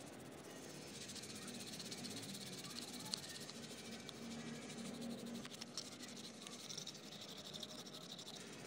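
Toothbrush bristles scrubbing a small toy part wet with soapy water: a soft, scratchy hiss with a couple of light clicks.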